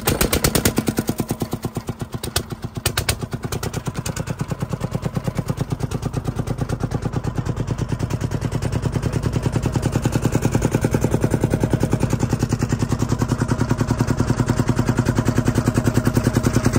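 Small boat engine running just after being started: a rapid, even chugging of separate firing strokes, a little uneven over the first few seconds, then steadier and slightly louder.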